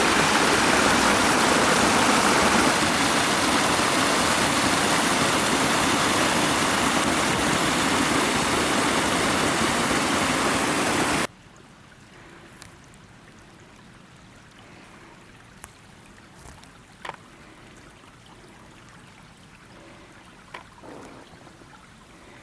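Waterfall: loud, steady rushing of falling water, which cuts off suddenly about halfway through. A faint, quiet background follows, with a few light clicks.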